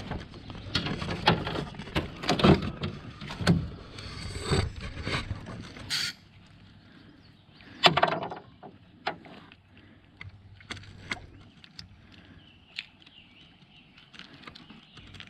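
Handling noises as a freshly caught fish is unhooked: a dense run of knocks, clicks and rustling for the first six seconds, then quieter, with one sharp knock about eight seconds in and a few light clicks after.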